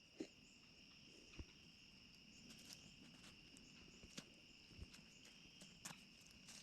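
Faint, continuous high-pitched trilling of crickets, steady throughout, with a few soft scattered clicks and knocks.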